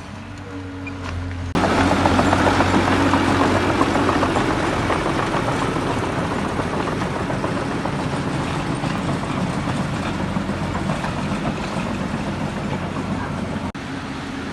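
Heavy diesel construction machinery running: a steady engine hum, then about a second and a half in a sudden much louder rushing noise that slowly eases off.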